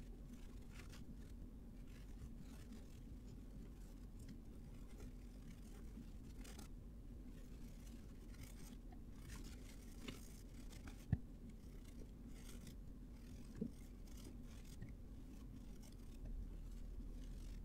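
Faint scratching and rubbing of handwork over a steady low hum, with two sharp clicks past the middle.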